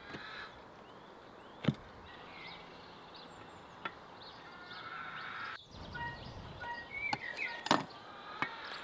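Outdoor rural ambience with birds chirping, broken by a few separate sharp knocks, such as a knife striking a cutting board.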